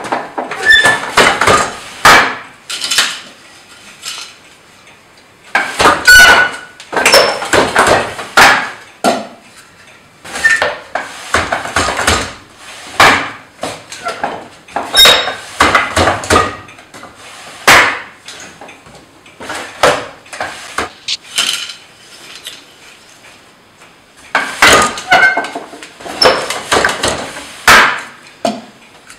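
Wooden floor loom being worked by hand: clusters of sharp wooden knocks and clatter as the beater is pulled against the cloth, the treadles shift the shafts and the boat shuttle passes through the warp. The clatter comes in bursts of a few seconds separated by short pauses.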